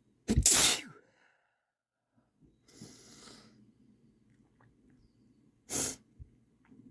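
A person sneezing hard about half a second in, a sniffly breath in around three seconds in, then a second, shorter sneeze near six seconds.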